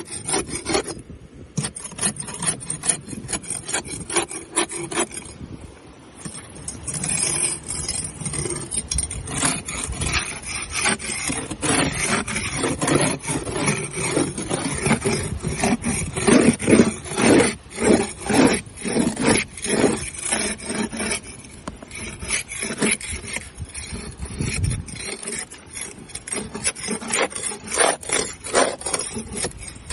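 Barnacles being scraped off a boat hull: a long run of quick, rasping scrape strokes, loudest about halfway through.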